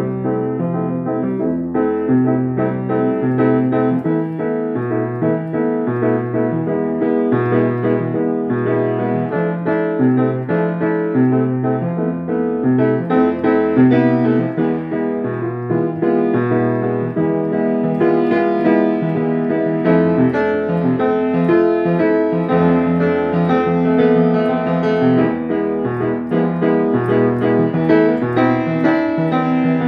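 Grand piano played continuously: a bass line changing about once a second under busy chords and runs higher up.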